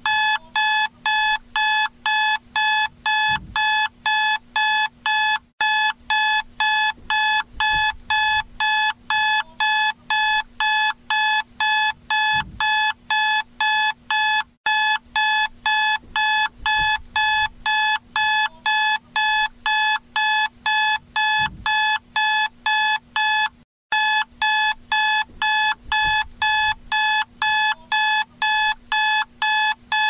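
Wake-up alarm clock beeping, about three beeps a second, with a brief break roughly every nine seconds; it signals the end of the nap timer.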